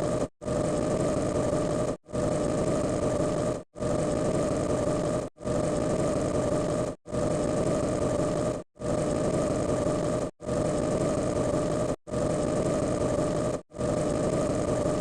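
A short clip of a steady, engine-like mechanical drone with a held hum, repeated over and over. Each repeat lasts about a second and a half and is cut off by a brief silence, one about every 1.7 seconds.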